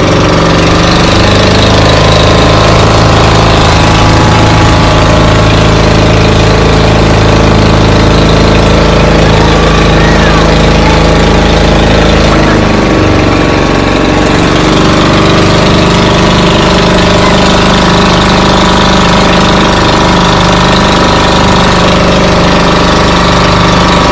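An engine running loudly and steadily, its pitch dropping and then climbing again about halfway through.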